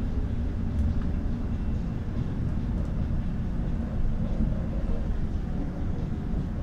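Interior noise of a moving bus heard from inside the cabin: a steady low rumble.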